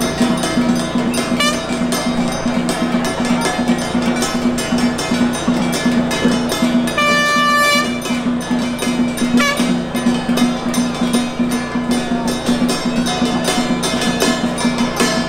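Handheld Taoist ritual bell shaken in rapid, continuous ringing over a steady low drone, with a brief horn-like toot about halfway through.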